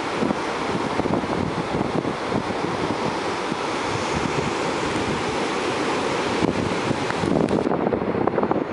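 Steady wash of ocean surf with wind blowing on the microphone. Near the end the high hiss thins out and the wind buffeting on the microphone grows.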